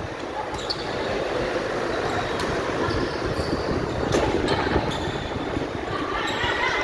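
Steady noise of a gym hall during a volleyball rally, with a few sharp hits of the ball and short squeaks from the court. Voices begin to rise near the end.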